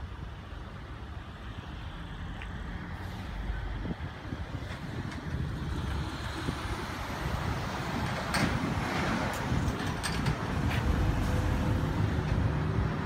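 Bucket truck's engine idling with a steady low rumble that grows louder toward the end, with a few faint clicks.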